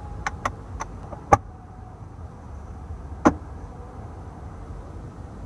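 Rear centre armrest's cup holder and storage lid being handled: a few quick light clicks, then two louder snaps, the first about a second and a half in and the second about two seconds later.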